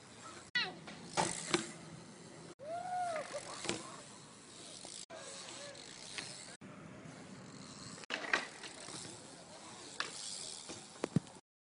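A BMX bike being ridden, heard in short clips joined by abrupt cuts: scattered clicks and knocks of the bike and its ratcheting rear hub, with a brief squeak that rises and falls about three seconds in. The sound cuts off suddenly near the end.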